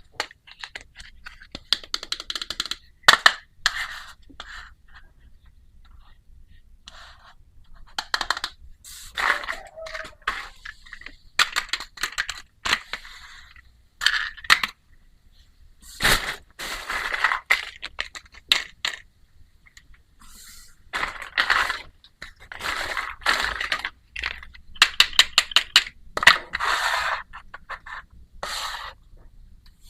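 Small plastic toy pieces and packaging being handled while a miniature kitchen set is unboxed: irregular clicks and taps mixed with short crinkling, scraping rustles, several of them in quick runs.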